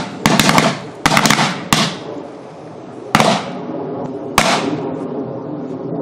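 Firecrackers going off inside a burning microwave oven. A quick run of sharp bangs comes in the first two seconds, then two louder single bangs about three and four and a half seconds in.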